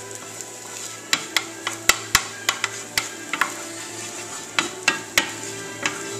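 Wooden spoon stirring chopped ginger in a hot nonstick frying pan: sharp taps of the spoon against the pan at uneven intervals over a light sizzle.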